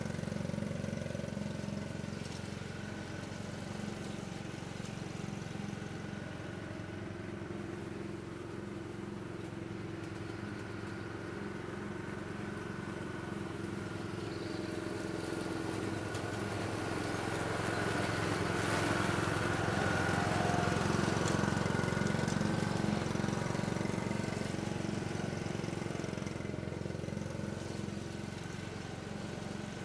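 Ride-on lawn mower engine running steadily as it mows. It grows louder past the middle as the mower comes nearer, then fades again.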